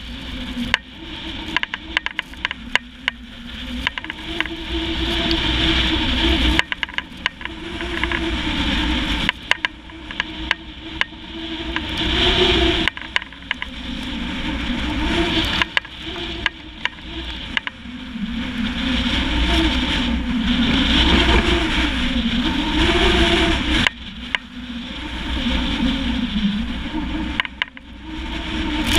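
Wind rushing over a GoPro HERO3+ camera's microphone while skis hiss and scrape on snow, swelling and fading in waves, with a wavering low whistle at times and many small clicks.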